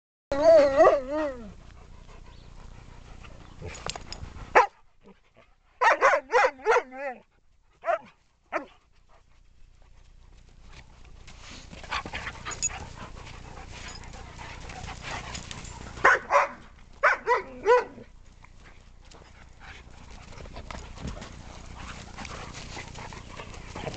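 A malamute-type dog vocalizing while it plays with another dog. The noises are a wavering, warbling call near the start, a quick run of about five short calls around six seconds in, and another cluster of short calls around sixteen to eighteen seconds.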